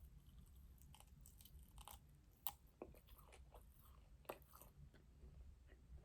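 Quiet chewing: soft wet mouth clicks and small crunches of food being eaten, scattered irregularly, with a couple of sharper clicks about two and a half and four seconds in.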